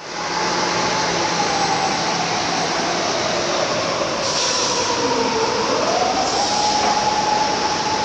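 Train running: a loud rushing rail noise that cuts in abruptly, with a whine that slowly sinks in pitch and then rises quickly back about six seconds in.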